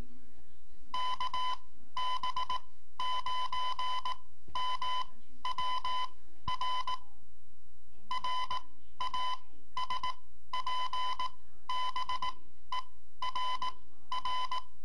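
Morse code from a Raspberry Pi AutoFox, a Raspberry Pi used as a ham-band FM fox-hunt transmitter: a tone of about 1 kHz keyed on and off in short and long beeps in uneven groups.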